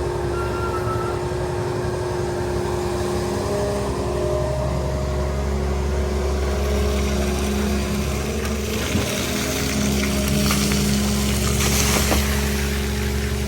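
Long-reach excavator's diesel engine running steadily under hydraulic load, with a hiss of splashing, draining water that grows louder in the second half as the bucket works the canal muck.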